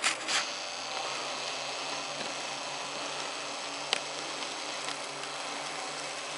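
Faint, steady low drone of a distant V8-powered Unimog's engine under a steady hiss, broken by a few sharp clicks: one at the start, one about four seconds in and one at the end.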